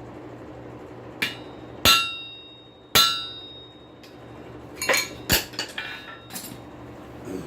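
Hammer blows on a hot punch driven through steel on a 211-pound solid steel anvil. The two heaviest blows, about two and three seconds in, leave a ringing tone. A quicker cluster of lighter strikes and clinks follows near the middle.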